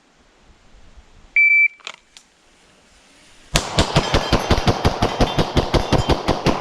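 A shot-timer beep, one short high tone, then about two seconds later a rapid string of pistol shots, roughly six a second, fired at steel targets.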